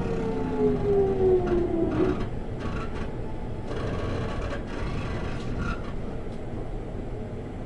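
JR 373-series electric train heard from inside its motor car: the traction motors and inverter whine, falling steadily in pitch as the train slows, and the whine dies away about two seconds in. After that comes steady wheel-on-rail rumble with a few clacks.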